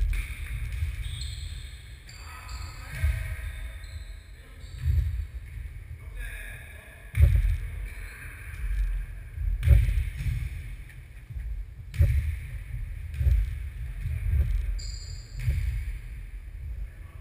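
Foot tennis ball being kicked and bouncing on a wooden sports-hall floor, a string of sharp thuds that echo in the big hall, the loudest about seven and ten seconds in. Players' voices and short squeaks of shoes on the floor come between the hits.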